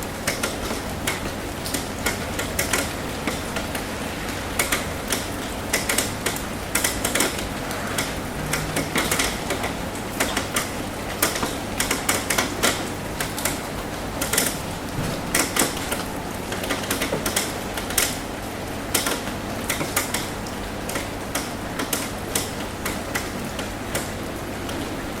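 Rain on a metal roof: a steady patter with irregular sharp drops tapping several times a second, over a faint low hum.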